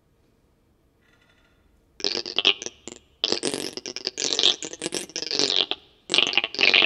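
Near silence, then from about two seconds in, irregular bursts of high hissing, scraping noise in short broken clusters, with a brief pause near the end. This is part of a live contemporary ensemble piece.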